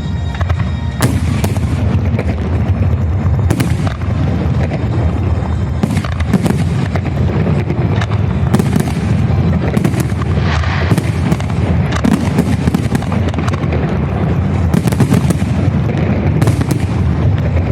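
Fireworks salute: aerial shells bursting in quick succession, a dense run of sharp bangs over a continuous booming rumble.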